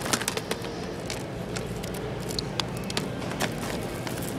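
Plastic Blu-ray cases clicking and clacking against each other at irregular moments as they are flipped through by hand, over a steady low background noise.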